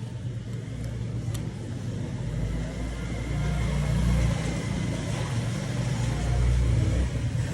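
Low rumble of a motor vehicle's engine running, building up over the first few seconds and then holding steady.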